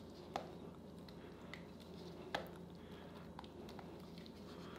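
A silicone spatula stirring a thick melted-chocolate and condensed-milk mixture in a glass bowl: faint soft squishing with a few light taps of the spatula against the glass, over a steady low hum.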